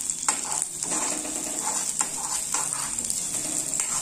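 Chopped onions and green chillies sizzling in hot oil in a metal kadai, with a steel spoon scraping and knocking against the pan several times as they are stirred.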